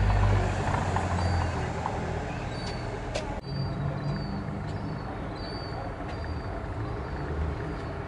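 Engine of a large road vehicle running nearby, a steady low rumble that is loudest about the first second in and then eases. Faint short high peeps sound over it.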